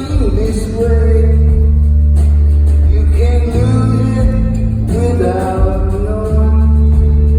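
Live rock band playing: a singer over electric guitars, bass and drums.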